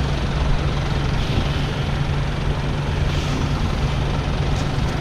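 Wind buffeting the microphone, an even rushing noise over a steady low engine hum.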